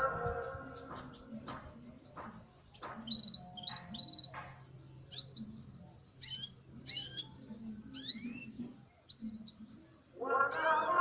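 Canary singing in broken phrases: rapid runs of high repeated notes and short rising whistles, separated by brief pauses. Background music comes back in near the end.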